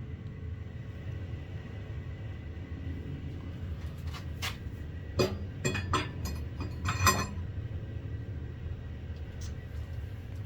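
Metal parts and tools being handled: a few sharp clanks and clicks between about four and seven seconds in, the loudest near the end of that stretch with a short ring, over a steady low workshop hum.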